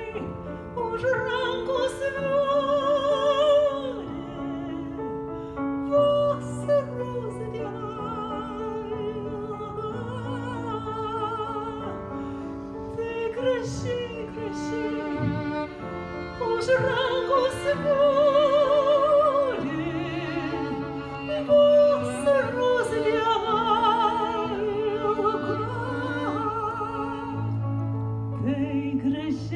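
Mezzo-soprano singing a slow Lithuanian art song in phrases with strong vibrato, accompanied by violin with held notes beneath the voice.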